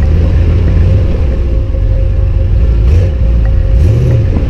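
Ram Power Wagon's 6.4-litre Hemi V8 running steadily, with a short rise and fall in revs about four seconds in.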